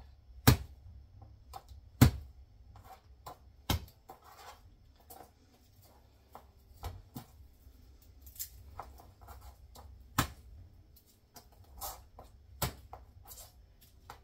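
Kitchen knife knocking on a plastic cutting board as garlic cloves are squished and cut: irregular sharp knocks, the two loudest in the first two seconds. Between them, softer rustling as the papery garlic skins are peeled off by hand.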